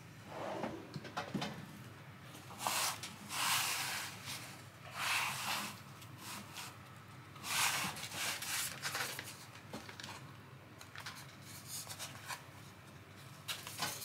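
Handling noise from a homemade battery charging station of packing foam on a 3 mm MDF base as it is slid and turned on a plastic cutting mat: several short rubbing scrapes with a few light knocks.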